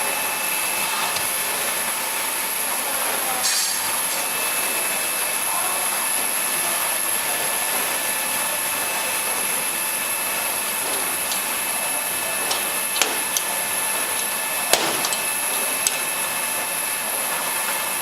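Vial tray washing machine running: a steady mechanical hiss and whirr with a few constant tones, broken by several short clicks and knocks in the second half.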